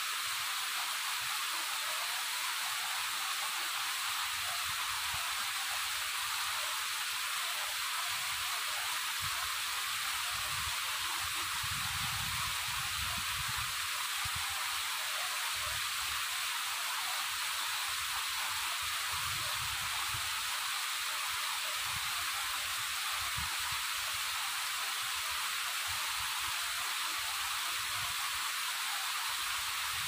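Waterfall rushing: a steady, even hiss with little low end, and a faint low rumble that comes and goes.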